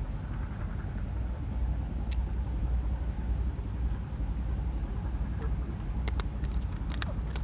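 Steady low outdoor rumble, like distant traffic, with a few faint clicks about six to seven seconds in.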